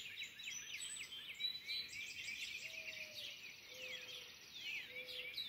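Dawn chorus: several birds singing at once, a dense run of quick down-sweeping chirps and trills. From about halfway in, a low, steady note repeats roughly once a second beneath them.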